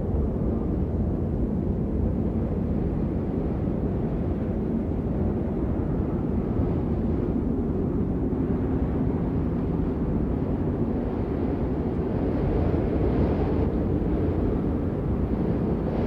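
Steady rain, a dense unbroken rush that sounds low and dull. It brightens slightly about twelve seconds in.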